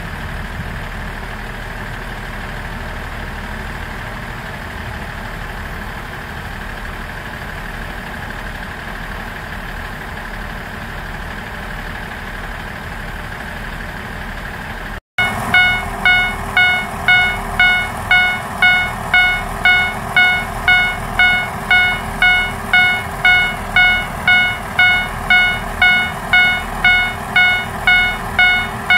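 Diesel railcar engine idling steadily while the train stands held. About halfway through, this gives way to a Japanese level-crossing warning bell ringing over and over, about two dings a second.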